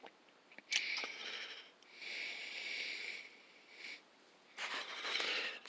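Three soft breaths, each a hiss of about a second, at a level well below the speech.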